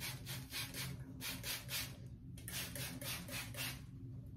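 Hand-pump spray bottle misting water onto hair in rapid trigger spritzes, several a second, with a brief pause about two seconds in.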